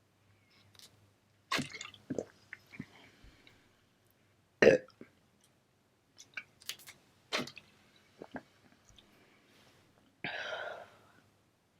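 Close-miked chewing and wet mouth sounds of a person eating a burger, with scattered smacks and clicks, one sharp and loud about halfway through. Near the end comes a short throaty sound lasting under a second.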